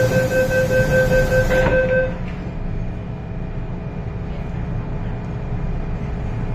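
Door-closing warning beeps of an MTR M-Train (Metro-Cammell EMU) sound for about two seconds over a hiss as the doors slide shut, ending in a knock as they close. A steady low hum of the standing train's equipment follows.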